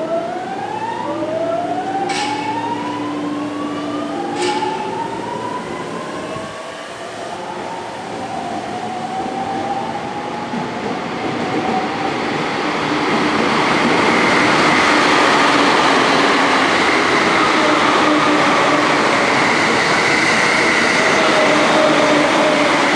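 JR 209 series electric train pulling away from the platform: its inverter-driven traction motors whine in several tones that rise in pitch step by step as it accelerates. About halfway through, the running noise of the cars passing grows louder and steadier, with a few clicks early on.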